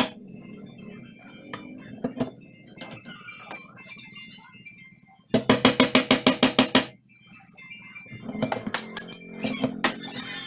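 A hammer tapping quickly on a wooden cabinet door, a run of about ten ringing strikes in a second and a half a little after the middle, with softer knocks and clinks of tools around it.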